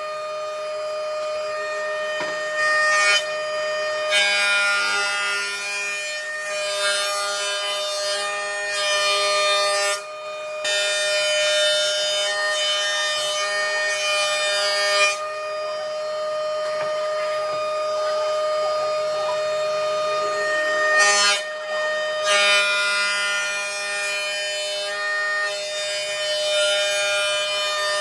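Jointer-planer running with a steady high whine from its spinning cutterhead, while a large timber beam is pushed across it; the rough shaving noise of the knives cutting wood comes and goes with each pass, dropping out briefly about ten seconds in and for several seconds in the middle.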